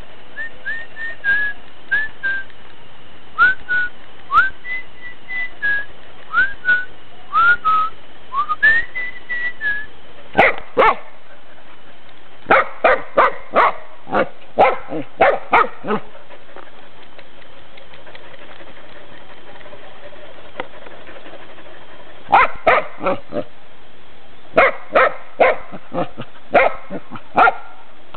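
Dog whining in short high-pitched whimpers for the first several seconds, then barking in quick runs of barks, with a pause of several seconds between runs.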